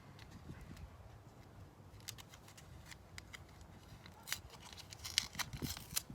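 Hands working small plastic parts while fitting a throttle controller unit into a car's cabin: scattered light clicks and rustles, with a cluster of sharper clicks near the end.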